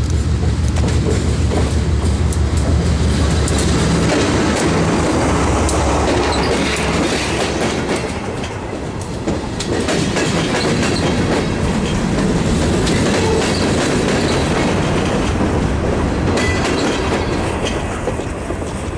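Diesel-led freight train passing close by. The locomotive's engine hum stands out for the first few seconds, then freight cars roll past with a steady rumble and wheels clicking over rail joints.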